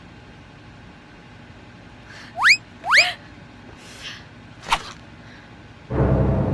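Two quick upward-sliding whistle-like sound effects about half a second apart, followed by a short swish and a brief sharp sound, then ominous music begins abruptly near the end.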